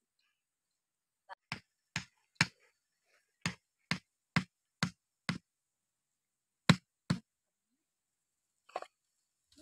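A bamboo stake being knocked into packed earth: sharp wooden knocks about two a second in short runs of three, five and two, with one weaker knock near the end.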